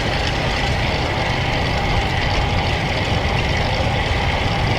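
Wind rushing over the camera's microphone and road noise from a road bike at riding speed: a steady low rumble with a thin, steady whine over it.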